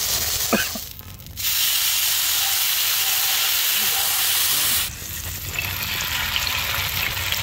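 Masala-coated fish frying in hot oil, a steady sizzle. The sizzle drops out briefly about a second in and turns quieter about five seconds in.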